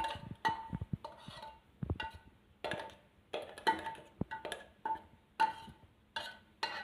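A spoon knocking and scraping inside a mixer-grinder jar as coarsely ground green pea paste is scooped out: a dozen or so sharp, irregular knocks, each with a short metallic ring.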